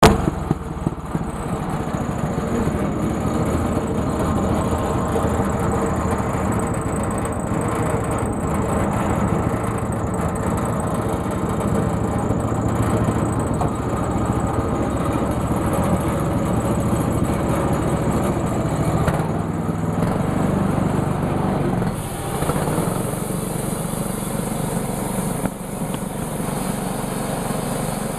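Sawmill engine running steadily while the mill cuts black walnut. The sound shifts to a different tone about 20 seconds in.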